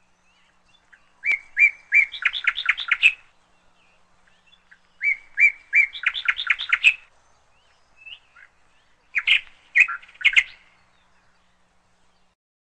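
A songbird singing three phrases, about four seconds apart. Each phrase opens with a few separate chirps and runs into a quick string of notes.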